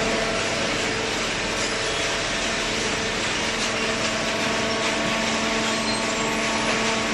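Automatic horizontal hydraulic carton baler running: a steady machine drone with an even low hum and a hiss over it, holding level throughout without a break.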